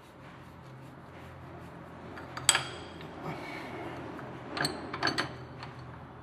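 A metal hand tool clinking against the sander's metal gear head while the bearing retaining clip is fitted. There is one sharp, ringing clink about two and a half seconds in, then a quick cluster of three clinks near the end, over a faint steady low hum.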